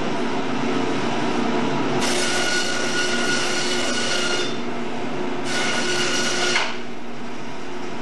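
Biro meat band saw running with a steady hum, its blade cutting through bone-in meat twice: a harsh, high whine for about two and a half seconds, then again for about a second.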